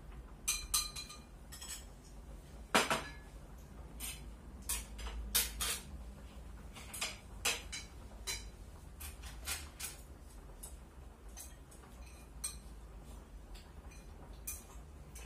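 Chopsticks and spoons tapping and clinking against bowls while eating: scattered short clinks, the loudest about three seconds in.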